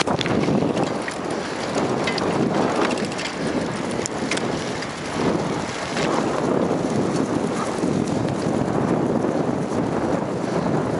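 Wind buffeting the microphone as it moves fast through open air: a loud, steady rushing noise, with a few light ticks in the first half.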